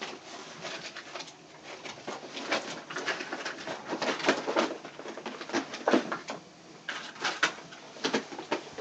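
Irregular clattering, knocks and rattles of objects being handled and moved about while searching for a tool.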